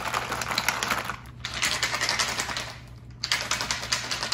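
A plastic sippy cup of milk being shaken hard to mix in a probiotic powder, a rapid rattling clatter in three bouts with two short pauses.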